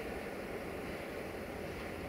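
Passenger train rolling away along the station tracks: a steady low rumble of wheels on rail, without clear clicks or horn.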